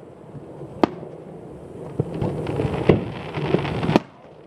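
Aerial fireworks shells bursting: four sharp bangs about a second apart, the third the loudest, with crackling and echo between them.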